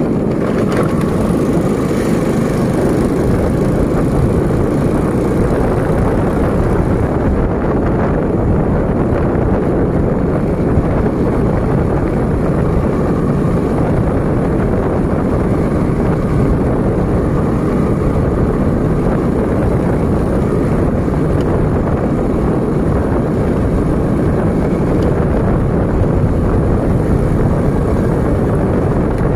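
Steady ride noise from a moving vehicle: a vehicle engine running under a continuous rush of wind across the microphone, with no change in pace.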